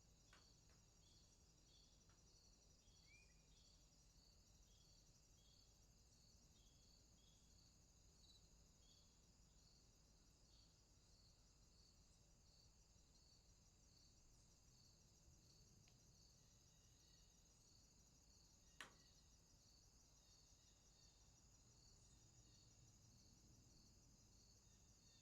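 Very faint insect chirping: a steady high trill with evenly repeated chirps about two a second. A single sharp click about 19 seconds in.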